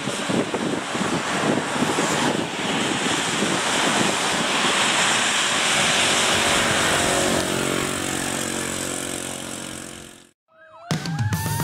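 Tyres hissing through standing water on a rain-soaked road as traffic passes, swelling about six seconds in as a car drives by, then fading out. In the last second, music with a rising siren-like sweep begins.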